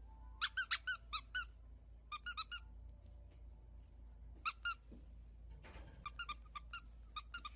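Tiny Yorkshire terrier puppy giving short, high-pitched squeaky yips in quick runs of a few at a time, several runs in a row.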